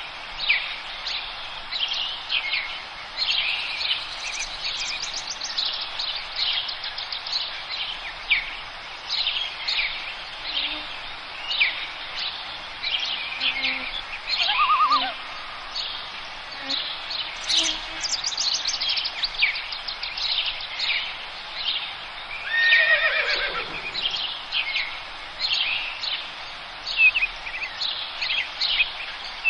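A chorus of forest songbirds, many short chirps and trills overlapping, over a steady background hiss. About three-quarters of the way through, one louder call sweeps steeply down in pitch.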